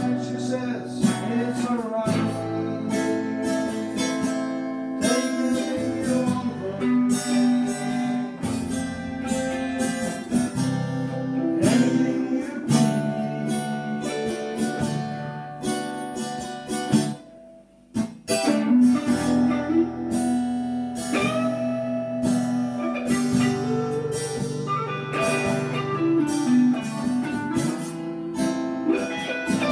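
Two guitars playing a blues together in a live jam, plucked and strummed. The playing drops out for a moment about 17 seconds in, then picks back up.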